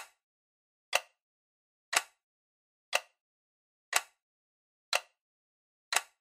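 Sharp electronic ticks, seven of them exactly one second apart, each dying away quickly, with silence between: a clock-like ticking sound effect under an animated title card.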